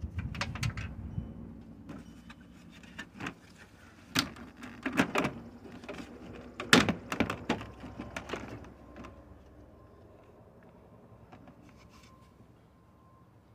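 Plastic windshield cowl cover of a 2010 Honda CR-V being pulled up off its retaining clips: a series of sharp plastic clicks and knocks as the clips let go and the panel knocks against the body. The loudest snaps come about four and seven seconds in, and the sounds die away after about nine seconds.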